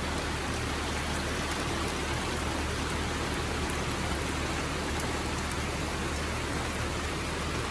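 Heavy rain pouring steadily, with occasional sharp ticks of single drops landing close by.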